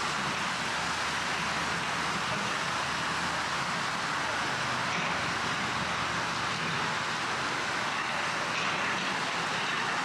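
Steady outdoor ambience: an even rushing hiss with no distinct events.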